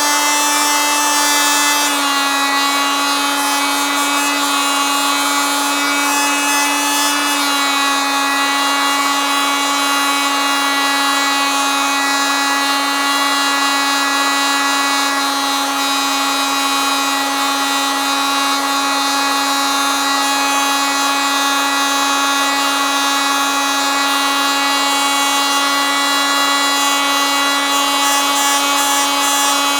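Oscillating multitool running continuously, a steady buzzing drone with a slight shift in pitch about two seconds in and again at about seven seconds.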